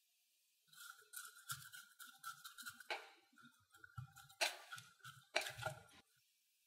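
White plastic rice paddle stirring and scraping seasoned rice around a glass bowl, with a few sharper strokes against the glass.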